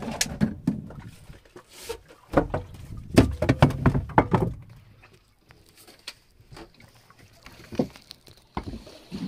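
A run of knocks and thumps aboard a small wooden fishing boat, loudest between about two and four and a half seconds in, then a quieter stretch of water along the hull with a few single knocks.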